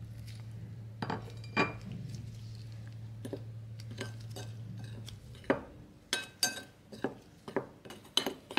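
Metal spoon stirring spice into flour in a glass bowl, clinking and scraping against the glass; the clinks come thick and fast in the last few seconds. A low steady hum runs underneath and stops about five seconds in.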